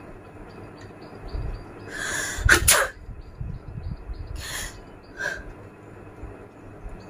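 A person sneezing once, about two seconds in: a breathy build-up ending in a sharp, loud burst. Two shorter breathy bursts follow. The sneeze is brought on by poking inside the nose.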